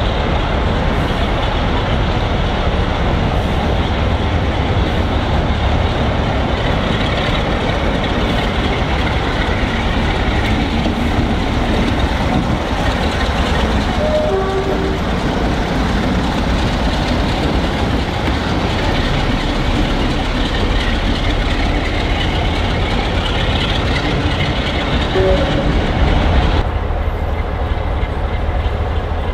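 Sulzer-engined Class 47 diesel locomotive running as it moves slowly past, a steady loud engine rumble. Near the end the sound turns duller.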